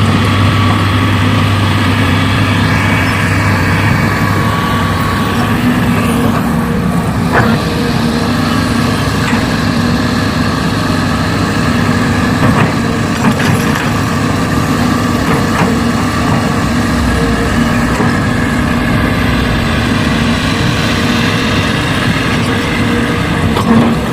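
Heavy-vehicle engine running steadily, with a few faint clicks or knocks over it.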